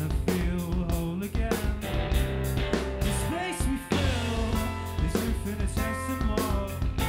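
Rock band playing live: a drum kit beating a steady, fast rhythm under electric bass and electric guitar.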